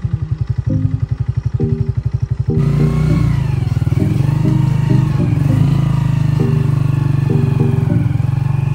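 Background music: a fast pulsing beat under a stepped melody, turning into a fuller, heavier mix about two and a half seconds in.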